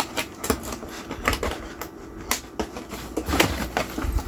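Hands working at a doll's packaging, pulling off old, disintegrated rubber bands: irregular small clicks and taps, several a second.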